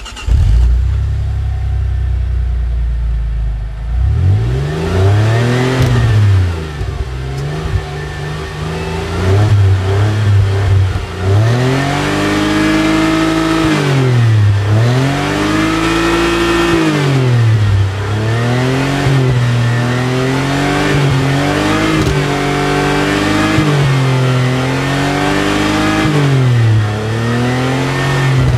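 Alfa Romeo Brera 3.2 V6 engine catching and idling with a low rumble for about four seconds, then revved over and over, the pitch rising and falling with each rev. The revs come as longer sweeps at first and as quicker, shorter blips in the second half.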